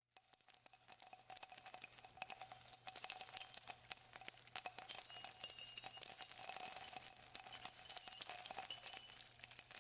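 Small jingle bells shaken continuously: a steady, bright jingling with many tiny clicks over a high ringing.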